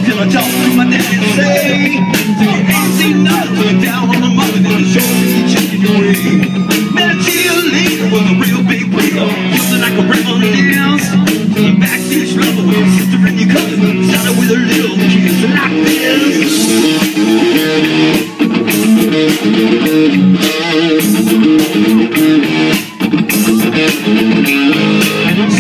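Rock band playing live: electric guitar, bass guitar and drums, with a singer on the microphone. The music drops out briefly twice in the second half.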